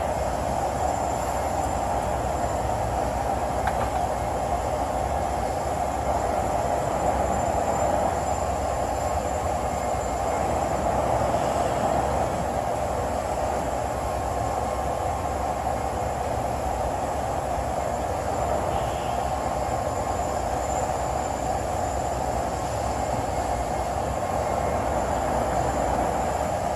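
1955 King 52-inch vertical turret lathe running under power: a steady mechanical drone from its drive, even and unchanging in speed throughout.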